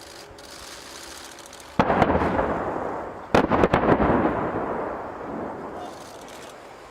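Explosions from military live-fire: one heavy blast about two seconds in, then a quick cluster of several blasts a second and a half later, each fading away slowly.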